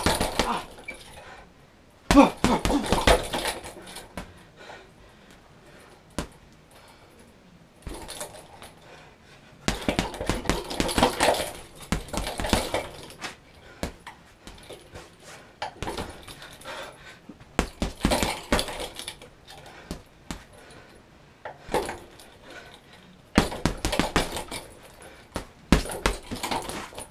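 Boxing gloves punching an Everlast MMA heavy bag in several flurries of rapid thuds, with short pauses between the flurries.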